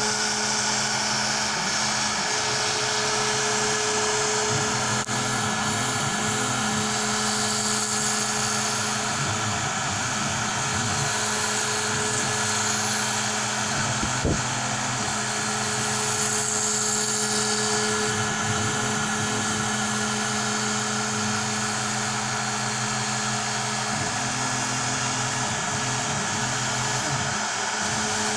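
Onefinity CNC router's spindle running steadily while cutting foam board, a constant high whine over motor noise, with one brief knock about halfway through.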